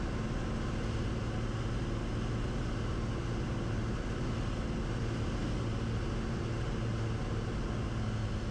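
Cessna 180's Continental O-470 six-cylinder engine and propeller running steadily in flight, an even drone that holds without change.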